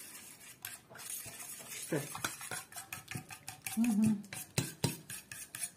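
A metal fork whisking thinned tahini sauce in a stainless steel bowl, making a run of quick clinks and scrapes of metal on metal.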